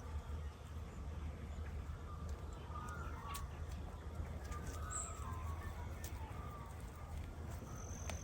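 Birds calling outdoors, short chirps clustered in the middle, over a steady low rumble.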